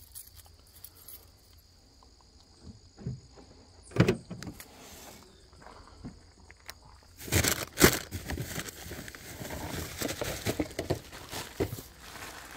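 Gear being handled in an open car trunk: scattered clinks and a sharp knock about four seconds in, a louder cluster of knocks around seven to eight seconds, then rustling and small clatters.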